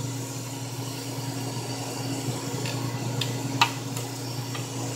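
Steady low hum of a clinical chemistry analyzer running, with a few light clicks and taps of plastic parts as a new cuvette diaphragm is pressed down into place by hand; the sharpest click comes about three and a half seconds in.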